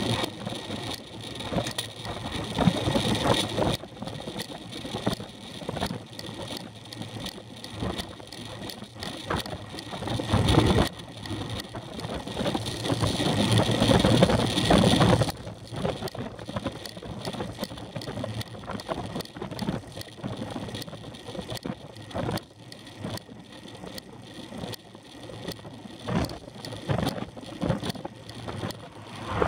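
Wind rushing over the microphone of a camera on a moving road bicycle, with tyre noise and small rattles from the bike over the road surface. The wind noise swells louder in the first few seconds and again for several seconds mid-way.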